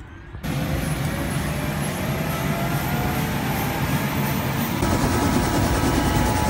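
Helicopter engine and rotor running, heard from inside the cabin: a loud, steady noise with a faint high whine that creeps slowly up in pitch. It starts abruptly about half a second in.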